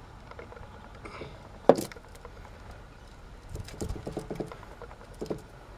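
A MAN D2866 diesel's individual cylinder head being set down onto the block over the head gasket and shifted into place on its guides: light metal knocks and scrapes, with one sharp clank about two seconds in and a smaller one near the end.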